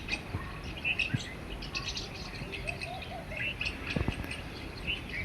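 Several small songbirds chirping: many short, high chirps overlapping one another, over a low steady background rumble.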